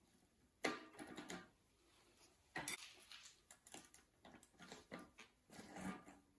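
Faint metallic clicks and light clatter as a bicycle cassette's lockring and steel sprockets are worked loose by hand on the rear hub.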